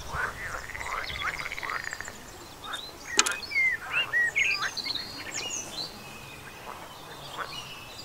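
Small birds calling: a fast trill lasting about a second and a half near the start, then a scatter of short chirps and whistles, with one sharp click a little after three seconds.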